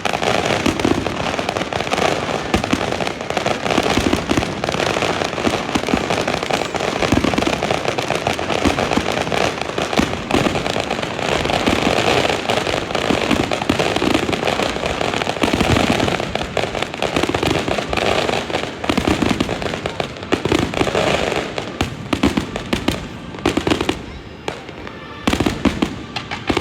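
Fireworks display: a dense, continuous barrage of bangs and crackling that eases slightly near the end.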